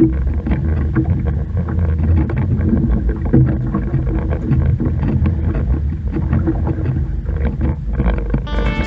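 Steady low rumble of a motorboat under way, with many small knocks over it. Music comes in near the end.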